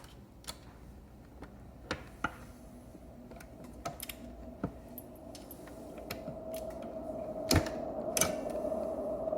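Scattered metal clicks and knocks as an electric scooter's hub-motor wheel axle is worked into the frame's axle slots, the loudest knock about three-quarters of the way through. A steady hum grows louder in the background from about halfway.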